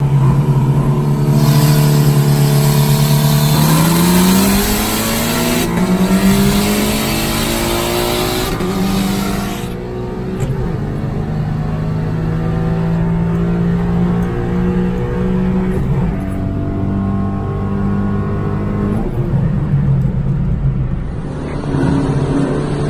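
Turbocharged Mitsubishi Lancer Evolution X GSR engine on E85, heard from inside its cabin. It cruises steadily, then about four seconds in accelerates hard, its pitch climbing through a gear change. After about ten seconds it eases back to a steady cruise.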